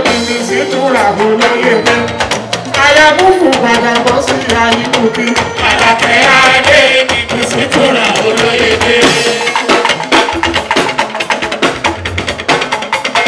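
Live Fuji music: a male lead vocalist singing through a microphone over a dense, driving beat of hand drums and percussion.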